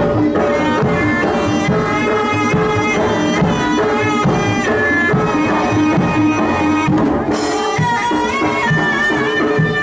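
Jaranan ensemble music: hand drums playing a busy rhythm under repeated pitched metal notes and a melody line, with a short crash about seven seconds in.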